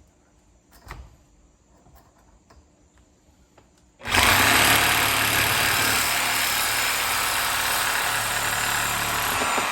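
Sawzall reciprocating saw cutting through 1¼-inch steel conduit, starting suddenly about four seconds in and running steadily through the cut after a few faint clicks.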